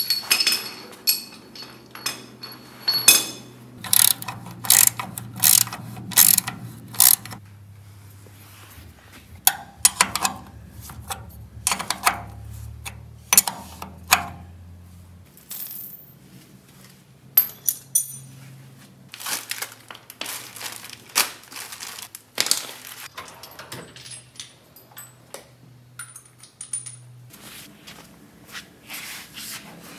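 Metal hand tools clinking and tapping: a wrench turning and knocking against the bolts and transmission case as a VW transmission is bolted into the chassis, in irregular bursts of sharp clicks.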